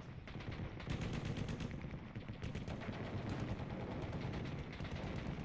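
Recorded battlefield sound effects: rapid machine-gun fire crackling over a low rumble of distant explosions. These are the war sounds that open a heavy-metal track before the guitar comes in.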